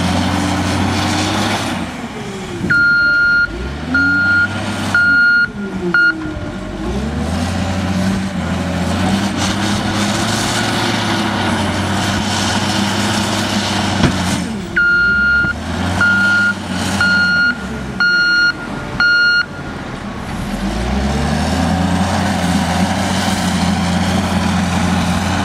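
Cat 966G Series II wheel loader's diesel engine revving up and down as it pushes into a dirt pile, lifts its bucket and backs away. Its reversing alarm beeps about once a second, four times a few seconds in and five times around the middle.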